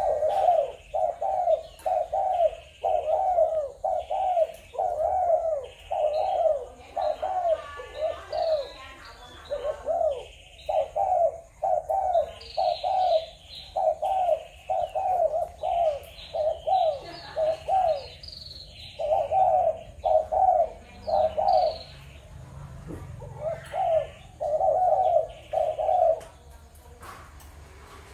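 Spotted doves cooing over and over, phrase after phrase of low, rhythmic coos with only short pauses, with fainter high chirping from other birds over them.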